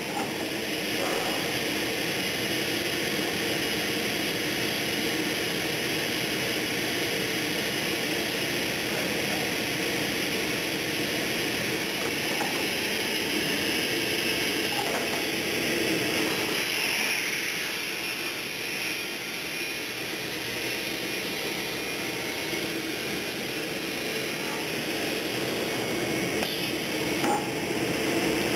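Steady running noise of woodworking shop machinery, with a few faint knocks.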